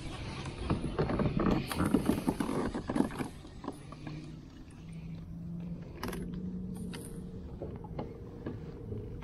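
A few seconds of clattering knocks, then a Minn Kota Endura electric trolling motor humming steadily on a kayak, its pitch stepping up and back down briefly partway through.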